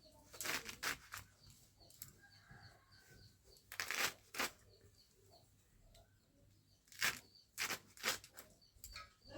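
Crisp, irregular snaps and cuts of bottle gourd stems and leaves being cut up by hand, in a few small clusters. Faint bird chirps in between.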